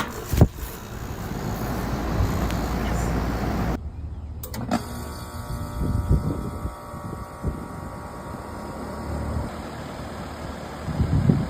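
Outdoor central air conditioner condenser units running: a steady fan rush at first, then after a sudden change about four seconds in, a steadier compressor hum carrying several pitched tones.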